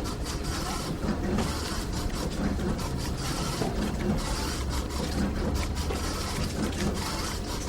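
Office room ambience: a steady low hum with scattered light clicks and clatter throughout.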